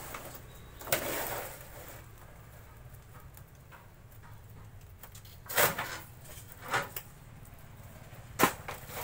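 Stiff, dry wood veneer sheets rustling as they are handled, then three sharp knocks over the last few seconds as the blade arm of a hand-lever veneer guillotine cutter is worked, the last knock the loudest.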